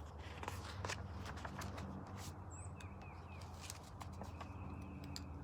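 Quiet outdoor ambience: a few small bird chirps about halfway through and scattered soft clicks, over a steady low hum.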